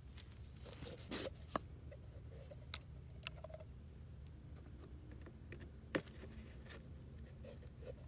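Quiet handling noises of a small plastic screw-top jar being opened and handled: scattered light clicks and scrapes, with one sharper click about six seconds in, over a low steady hum.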